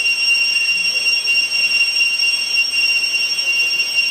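Forest insect chorus, typical of cicadas: a loud, steady, high-pitched whine made of several unchanging tones.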